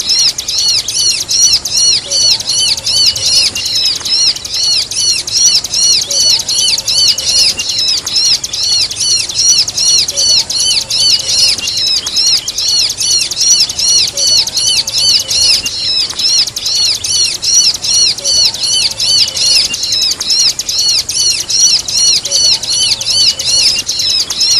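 Bar-winged prinia (ciblek) song mixed with kejepit bird calls: an unbroken, fast run of high, arched chirps, about four a second.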